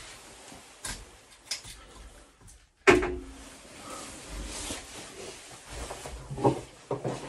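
Handling noises from plumbing work: scattered knocks and clicks of pipe fittings and tools being moved about. One sharp clank about three seconds in rings briefly.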